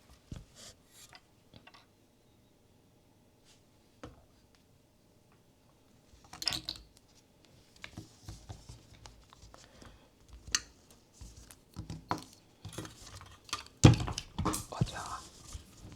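Small plastic figures being picked up, set down and shifted on a display stand: scattered light clicks, taps and rustles. They are sparse at first, come more often from about six seconds in, and the loudest knock falls near the end.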